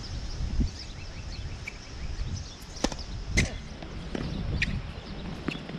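Tennis ball knocking a few times off the hard court and racket, sharp single knocks, the loudest two about three seconds in and half a second apart. Low wind rumble and faint high bird chirps underneath.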